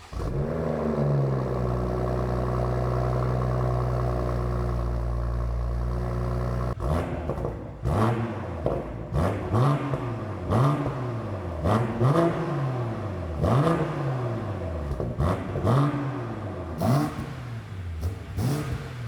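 BMW M240i's B58 3.0-litre turbocharged inline-six cold-starting through a Valvetronic Designs valved exhaust on the stock downpipe: it flares on catching and settles to a steady fast idle. About seven seconds in, a series of short revs follows, roughly one every second and a half.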